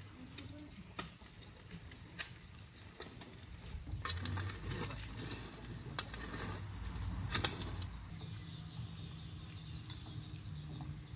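Metal shovel digging and turning over loose garden soil: scraping crunches and a few sharp clicks as the blade cuts into the earth, busiest in the middle.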